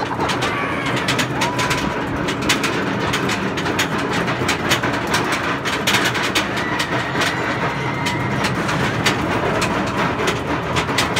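Roller coaster train running along its track: a steady rumble with constant irregular clattering of the wheels on the rails.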